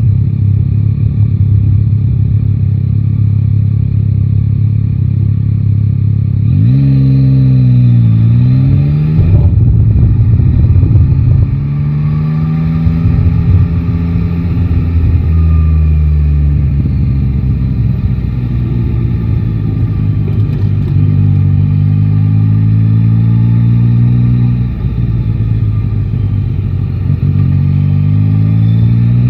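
Yamaha Tracer 9 GT's 890 cc inline-three engine on the move. A steady low rumble gives way, about six seconds in, to a rise in pitch as the bike accelerates. The engine note then climbs and falls back several times as it pulls through the gears, dropping at each shift.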